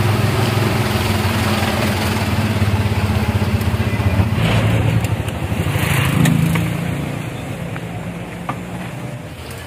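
Motorcycle engine of a motorized tricycle (tricab) running steadily. About six seconds in its pitch rises briefly, then the engine sound dies down over the last few seconds.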